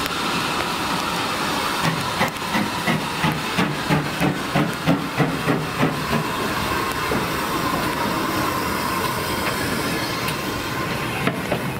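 Steam locomotive with a steady hiss of steam and a faint, slowly falling tone, and a rhythmic beat about twice a second for a few seconds in the first half.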